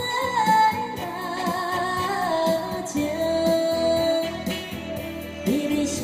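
Saxophone playing a slow, sung-style melody with long held notes and slides between them, over an electronic keyboard accompaniment with a steady beat.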